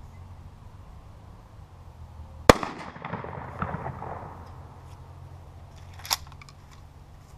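A single blast from a Remington 870 Express Magnum 12-gauge pump shotgun firing a 3-inch Winchester Long Beard XR turkey load, about two and a half seconds in. An echo rolls away over about two seconds after it. A short sharp clack follows near the end.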